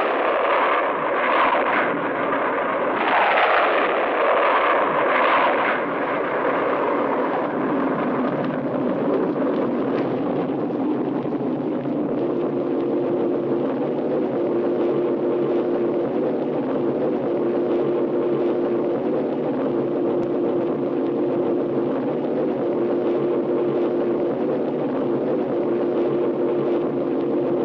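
Cartoon rocket thruster sound effect: a few whooshing surges of rushing noise in the first six seconds, then a steady thruster rush that settles into a continuous drone with a steady low hum from about twelve seconds in.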